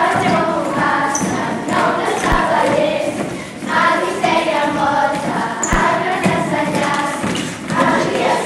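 A group of voices singing a song together, with two dull knocks, one a couple of seconds in and one about two-thirds of the way through.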